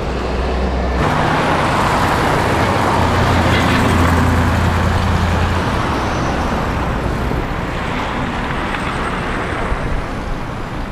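Road traffic: a motor vehicle driving past, its engine hum and tyre noise swelling about a second in, loudest around four seconds, then slowly easing off.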